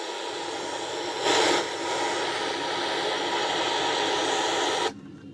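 FM radio static hissing from the F&D A111F 2.1 home theater's speaker, a sign that the tuner and amplifier are now passing sound. The hiss swells briefly about a second in and cuts off abruptly near the end.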